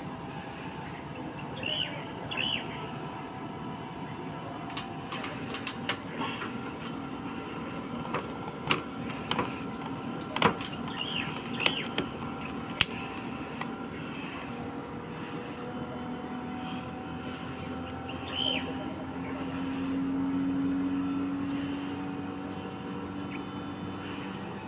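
Outdoor unit of a Samsung split air conditioner running after its outdoor circuit board was repaired: a steady hum with a few level tones. Scattered sharp clicks come through the middle, and a low hum swells for a few seconds near the end. Birds chirp briefly now and then.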